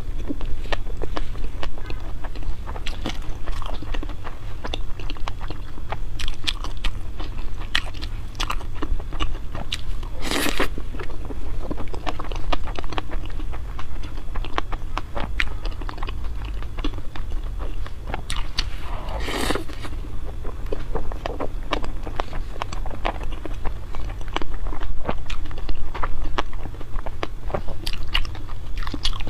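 Close-miked chewing and biting of food: a dense run of small wet clicks and crunches, with two longer, louder sounds about ten and nineteen seconds in, over a steady low hum.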